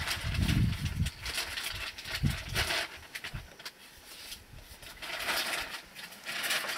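Leaves and branches rustling and crackling in spells as an African bush elephant pulls at a bush with its trunk to feed. Low heavy thuds and rumble come in the first second.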